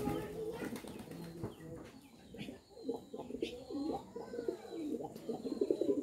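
Domestic pigeons cooing, a low throbbing coo that grows fuller through the second half, with a few light clicks among it.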